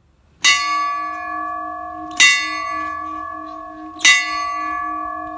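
A small hanging bell rung with its pull rope: three strokes about two seconds apart, each ringing on with a long, steady tone that overlaps the next.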